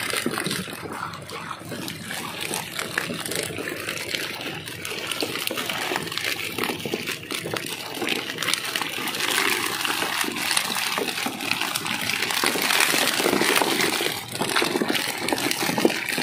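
Water splashing and sloshing, with many short sharp slaps over a steady rushing noise, heavier in the second half.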